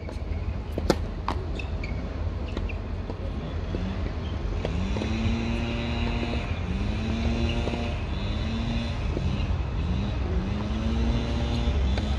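A tennis racket striking the ball hard on a serve about a second in, followed by a few lighter ball hits and bounces. Wind rumbles on the microphone throughout, and from about four seconds in a low hum repeatedly rises in pitch and levels off.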